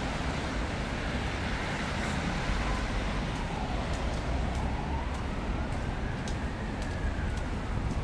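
City street traffic with a steady low rumble, and a faint emergency-vehicle siren wailing slowly up and down, about one rise and fall every four to five seconds.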